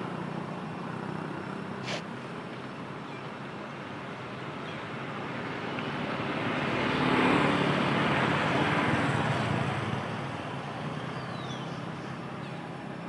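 A motorbike passing along the road: its engine and tyre noise swell to a peak about halfway through, then fade away. A single sharp click comes about two seconds in.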